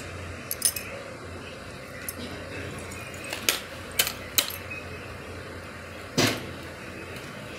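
A baby's hand slapping at a laptop keyboard: a handful of sharp, irregular clacks and knocks, two close together near the start, three in quick succession in the middle and one heavier knock near the end, over a steady hiss.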